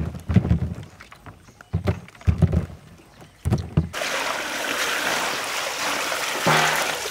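Dull thuds and sloshes as wet green coconuts are lifted from a basin of soapy water and set down in a woven basket. About four seconds in, water is poured over the coconuts and splashes steadily through the basket.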